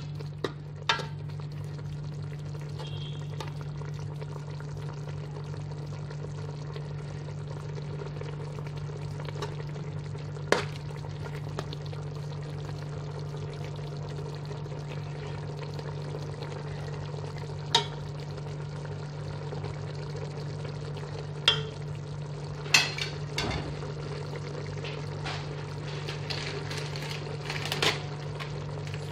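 Carrots cooking in a pot of tomato-spice sauce on the heat, a steady sizzle and simmer. A handful of sharp clinks of a utensil against the pot sound through it, over a steady low hum.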